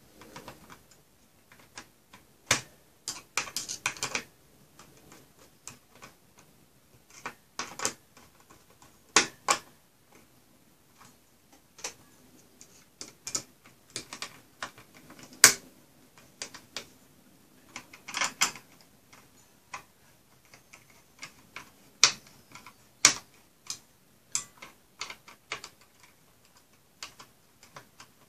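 Scattered sharp clicks and taps, some in quick clusters, from a metal CPU heatsink and screwdriver being handled and fitted on a server motherboard.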